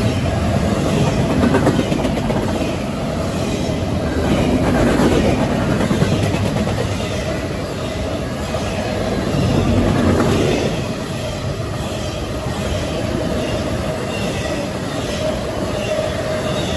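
Freight cars of a fast intermodal train rolling past at about 60 mph: a steady heavy rumble with wheel clatter over the rail joints and a steady ringing tone from the wheels that is clearest in the second half.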